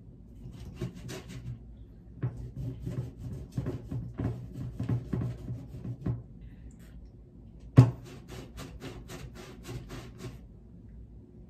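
Small metal hand tool pressed and worked in potting soil in a plastic tub, giving irregular knocks and gritty scrapes. About two-thirds of the way through comes one sharp, loud clack, followed by a quick run of light ticks, about six a second, for a couple of seconds.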